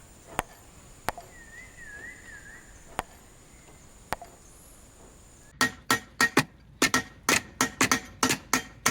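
Sharp knocks on engine parts during a teardown: a few scattered single knocks, then from about halfway in a quick run of repeated knocks, some four to five a second.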